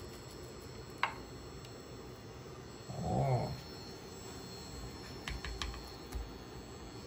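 Plastic spatula handling a raw hamburger patty and setting it in a stainless-steel frying pan: a sharp click about a second in, then a few light taps and dull knocks against the pan near the end. About three seconds in, a short vocal sound is the loudest thing heard.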